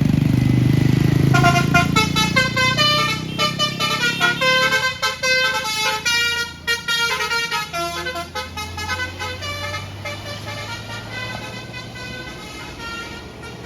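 A bus's multi-trumpet basuri telolet horn playing a fast tune of short notes over the loud rumble of the bus engine. The engine rumble drops away about five seconds in, and the tune grows fainter toward the end.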